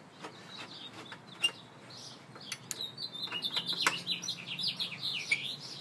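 A small bird chirping and twittering in a rapid run of short high notes from about three seconds in, over a few light metallic clicks of an Allen key and bolts handled against a motorcycle grab handle.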